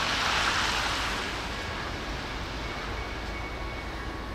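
Distant BNSF freight train approaching, a steady low rumble of its diesel locomotives, with a brief rush of hissing noise near the start that fades out.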